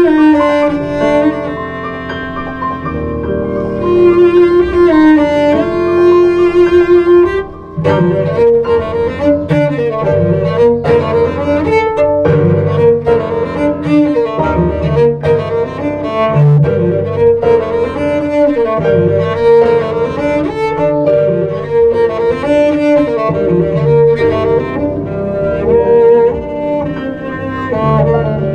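Cello and piano duo playing classical music. The cello holds long bowed notes at first; after a brief break about seven and a half seconds in, the two play a busier passage of quick notes over piano chords.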